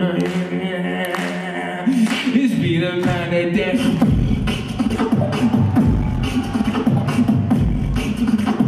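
Live solo beatboxing through a microphone and PA: a held, hummed tone with sharp percussive clicks and snares, then from about four seconds in a deep throbbing bass comes in under a wavering vocal line.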